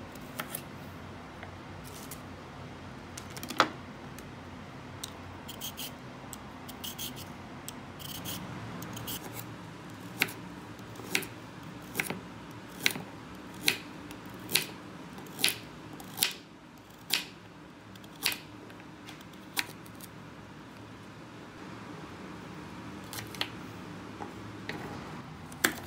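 Kitchen knife slicing a raw carrot into rounds on a wooden cutting board: crisp chops as the blade cuts through and taps the board. There are a few scattered cuts at first, then a steady run of about eleven chops, a little over one a second, through the middle.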